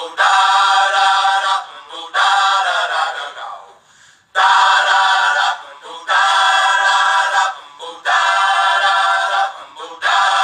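A song with sung vocals: long held notes in choir-like phrases of one to two seconds each, broken by short pauses.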